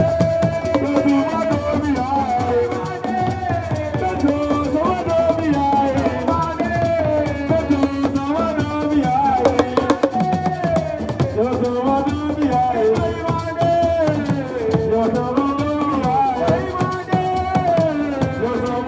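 Live Senegalese assiko music: a voice sings a gliding melodic line over fast, dense drumming.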